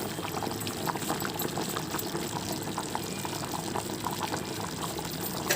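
Chicken curry simmering in the pot, bubbling steadily with many small irregular pops and sputters.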